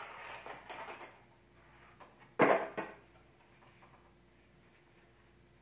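Rustling and handling of packaging as a camcorder is lifted out of its box, with one brief, louder rustle about two and a half seconds in, then quiet handling.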